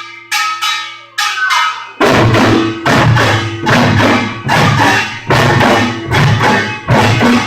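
Korean pungmul percussion ensemble playing. A few ringing strikes on the small gong open the passage, then the drums and gongs come in together about two seconds in and play a steady, loud beat of about two strokes a second.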